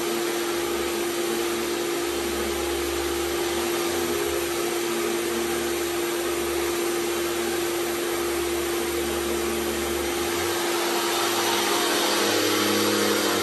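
1975 Hoover Celebrity II canister vacuum running steadily, its power nozzle pushed back and forth over carpet, with a constant motor whine over the suction noise. It grows a little louder in the last few seconds.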